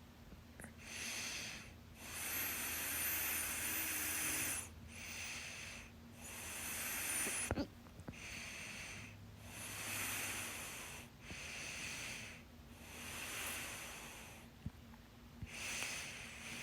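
A person with hiccups breathing heavily in and out, about nine noisy breaths in a row. A sharp hiccup cuts off one breath about seven and a half seconds in.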